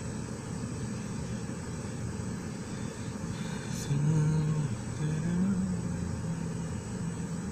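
Steady low rumble of running machinery. About four seconds in, a low pitched hum joins it, breaking off and changing pitch several times.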